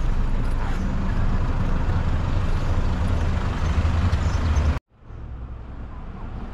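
Car engine idling with a steady low hum, heard in and around the parked car with its doors open. It cuts off suddenly about five seconds in, giving way to quieter street noise.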